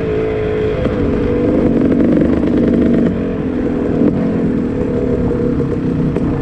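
Kawasaki KX250 single-cylinder two-stroke engine running at low revs as the bike rolls slowly, its pitch easing down about halfway through.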